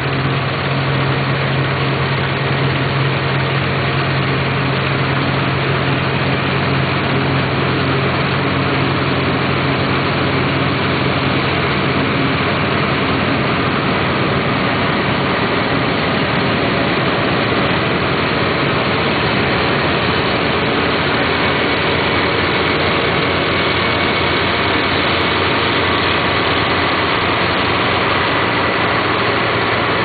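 Massey Ferguson 34 combine harvester running steadily while harvesting wheat: a continuous engine hum under the dense rattle and rush of the threshing machinery, with no change in pace.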